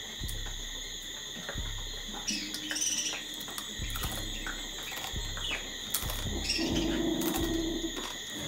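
Birds give short chirps now and then over a steady high insect drone, with soft knocks and mouth sounds of someone eating lobster with her fingers.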